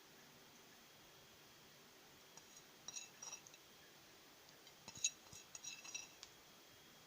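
Light clinks of a metal utensil against a dish, a short cluster about three seconds in and a quicker run of taps about two seconds later, over near silence.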